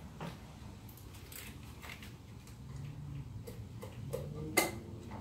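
Scattered light metallic clicks and taps of hand tools on engine parts, working the throttle cable bracket at the intake manifold, with one sharper click about four and a half seconds in, over a low steady hum.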